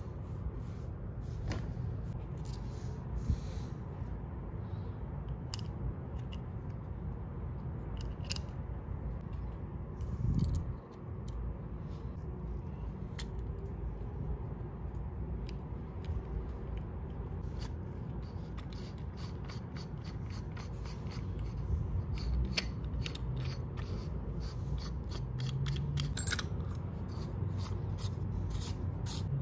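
Metal and plastic parts of a Black & Decker 4300 drill bit sharpener's chuck assembly handled and fitted together by hand, giving scattered light clicks and scrapes. The clicks come thicker in the second half, with one low thump about ten seconds in, over a steady low background rumble.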